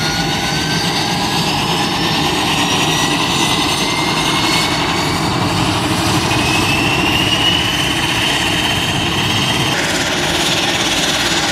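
Embraer EMB-120 Brasilia's turboprop engines running on the ground during a run-up after an engine change. A high turbine whine rises steadily in pitch for about six seconds as an engine spools up, then holds steady, over a constant low engine drone.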